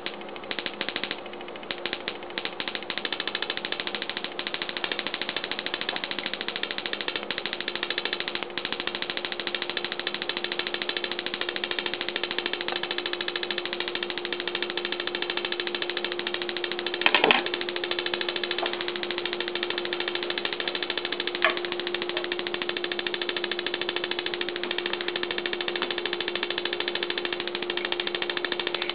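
Automotive ignition coil pulsed by a 555 timer circuit, sparking across the gap between two aluminium cans. The sparks snap in a fast, even train, sputtering irregularly for the first few seconds. A steady hum runs underneath, and there is one louder crack about 17 seconds in.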